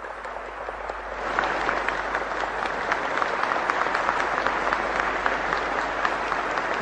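Congregation applauding: dense clapping that builds up over the first second or so and then goes on steadily.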